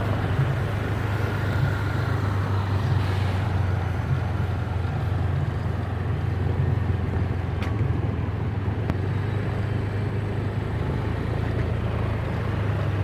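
Large diesel bus engine running steadily close by, a deep even hum with road-vehicle noise over it, and one sharp click about eight seconds in.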